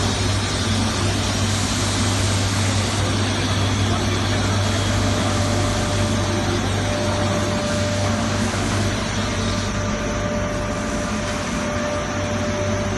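Hanger-type shot blasting machine running: a steady low machine hum with an even hiss over it and a faint steady tone, without breaks.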